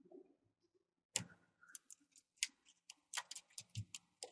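Small Phillips screwdriver backing a tiny screw out of a laptop LCD panel's metal side bracket: a run of quick, irregular sharp clicks beginning about a second in.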